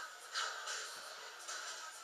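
Steel bit of a Gränsfors Outdoor Axe scraping on a whetstone during hand sharpening, with one sharp stroke about half a second in, over background music.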